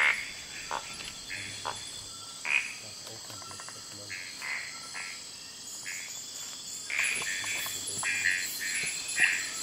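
Night chorus of frogs calling in short, repeated notes at irregular intervals, over a steady high drone of insects.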